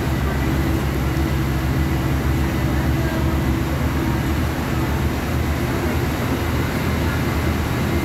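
Diesel engine of a Volkswagen 17.230 OD city bus running at a steady speed, with an even, low engine note that does not rise or fall.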